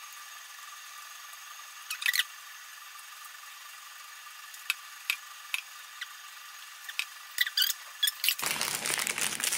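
Quiet steady hiss with a few faint scattered clicks. About a second before the end, a protein bar's plastic wrapper starts crinkling.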